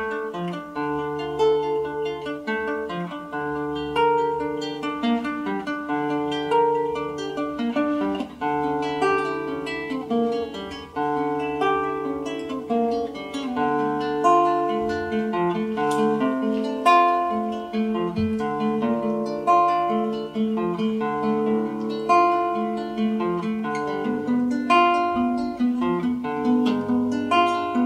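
Nylon-string classical guitar played fingerstyle: a plucked melody with ringing notes over repeating bass notes, without a break.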